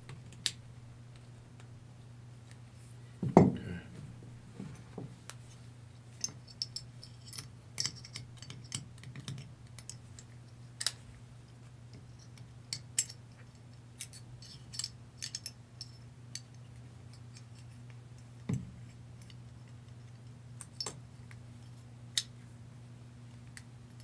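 Metal AR-15 rifle parts being handled and fitted together by hand during reassembly: scattered small metallic clicks and clinks, with a heavier knock about three seconds in, over a steady low hum.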